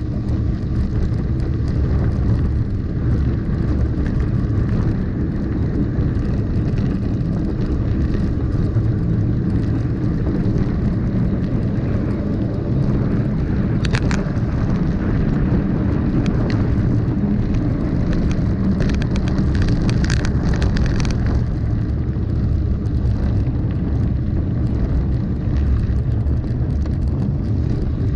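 Steady low rumble of a mountain bike rolling down a dirt and gravel road, with wind buffeting the bike-mounted microphone and the tyres crunching over the surface. A sharp click about halfway and a brief burst of rattling a little later come from the bike jolting over rough ground.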